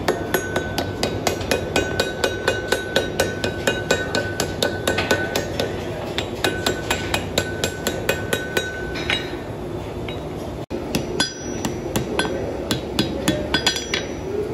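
Blacksmith's hammer striking red-hot steel in a swage block and on an anvil, forging a spear socket: a quick, even run of ringing metal-on-metal blows, about three a second. The run breaks briefly about ten seconds in, then picks up again.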